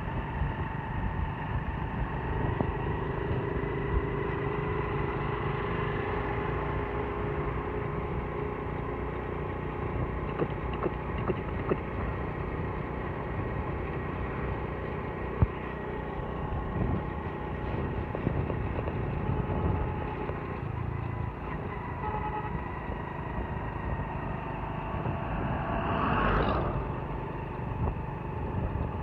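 Steady running of a road vehicle's engine with tyre and road noise while travelling along. About 26 seconds in there is a brief louder swell.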